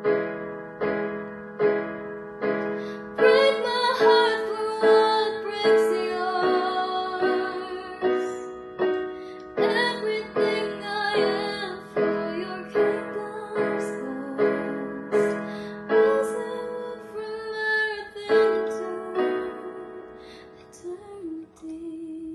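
A woman singing a slow melody with vibrato over piano accompaniment; the piano strikes notes about twice a second, and the voice comes in about three seconds in.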